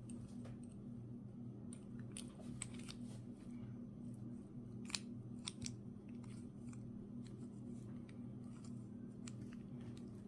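Faint small metallic clicks of a tumbler being fitted and turned in an old ignition lock cylinder, scattered and irregular, the sharpest about five seconds in, over a steady low hum.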